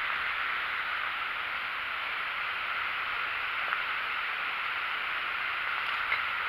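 Steady even hiss, with a faint tick a little past halfway and another near the end.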